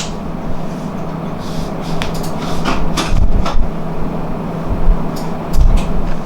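Scattered sharp taps and clicks with soft thumps from a cat teaser being played with, over a steady low hum.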